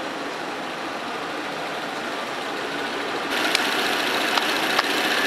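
A 1928 Ford Model A's four-cylinder engine idling steadily. A little past halfway the sound turns suddenly brighter and hissier, with three sharp ticks.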